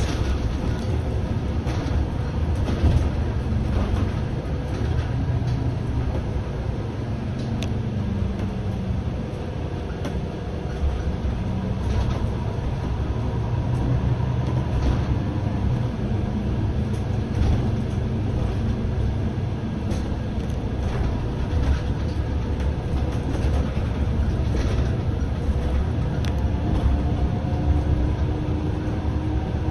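MAN Lion's City A21 city bus driving, heard inside the bus: a steady low engine and road rumble, with faint whines that rise and fall in pitch a few times as it speeds up and slows, and a few brief clicks.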